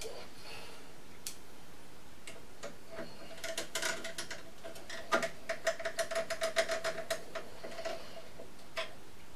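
Long screwdriver turning a screw into the Ascaso grinder's stainless housing, giving light metallic ticks: a few scattered at first, then a quick even run of about five a second in the middle, and a couple of single clicks near the end.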